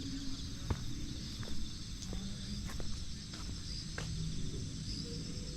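Insects chirping steadily in a high, finely pulsing drone, with a scatter of sharp ticks and clicks and a low rumbling background.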